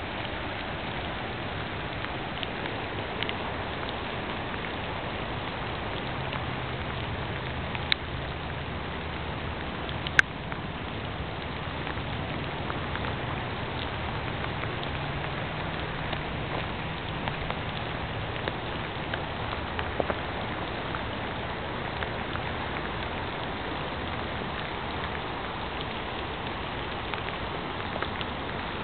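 Steady rain falling on flooded river water and wet ground: an even hiss with scattered sharp ticks of drops landing close by, the loudest about ten seconds in. A faint low hum runs underneath.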